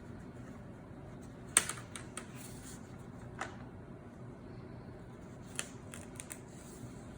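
Plastic retaining clips of an HP Stream 14 laptop's screen bezel snapping loose as the bezel is pried off by hand: a scatter of sharp little clicks, the loudest about a second and a half in.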